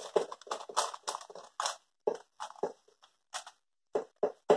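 Hands pressing a buttery graham-cracker crumb crust into a parchment-lined springform pan: a run of short, uneven crunching sounds, closer together at first and more spaced out later.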